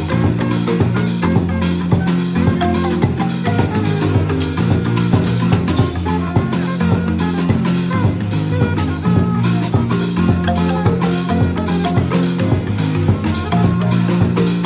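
Marimba band playing live: struck marimba notes in a steady, repeating groove, with low bass notes underneath.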